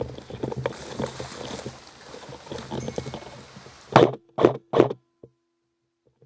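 Handling noise on a rifle-mounted camera as a player moves off: rustling and small knocks over a low hum. About four seconds in come three loud, sharp knocks about 0.4 s apart, then the sound drops away almost entirely.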